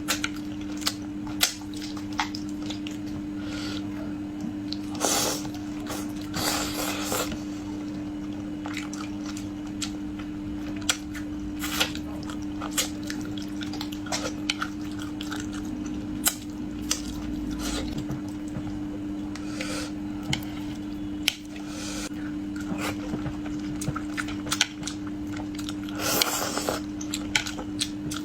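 Eating sounds from spicy braised fish: wet squishing and smacking with scattered sharp clicks of utensils on a dish, over a steady low hum.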